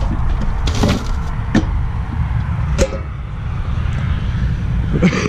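Rubbish tipped from a small bin into a roadside litter bin, its plastic lid and the rubbish clattering in a few sharp knocks about one, one and a half, and three seconds in, over a steady low rumble.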